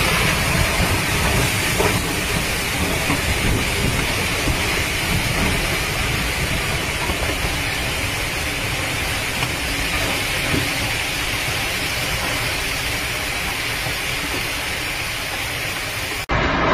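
Typhoon-force wind and driving rain: a loud, steady rush of noise that breaks off shortly before the end.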